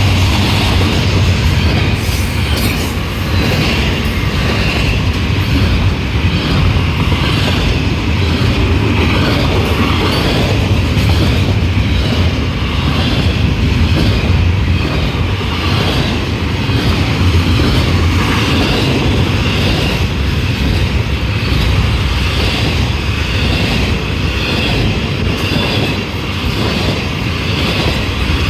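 Freight train cars rolling past close by: a loud, steady rumble of steel wheels on rail from autorack and double-stack intermodal well cars, with a faint regular pulsing as the wheel sets go by.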